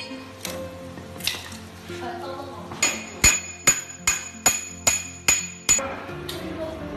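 A hatchet chopping firewood sticks: a quick run of about eight sharp blows with a metallic ring, about two to three a second, starting near the middle, after two fainter single blows.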